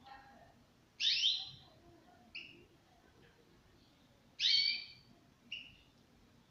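Caged European goldfinch calling: two loud falling calls about three and a half seconds apart, each followed about a second later by a short chirp.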